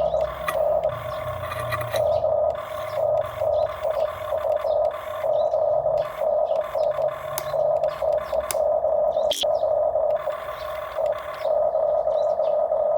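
Small electric motors and gearboxes of radio-controlled model construction machines whining in short on-off bursts, a steady mid-pitched whine that starts and stops as the controls are worked, with a few sharp clicks.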